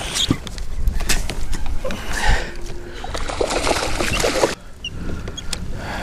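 Water splashing and sloshing against a fishing kayak, with clattering knocks and clicks on the hull and gear, as a hooked bass is fought at the boat. It breaks off sharply about four and a half seconds in and goes on a little quieter.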